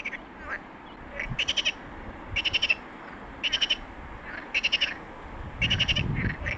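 An animal's rapid chattering call, each a quick string of pulses about half a second long, repeated about once a second.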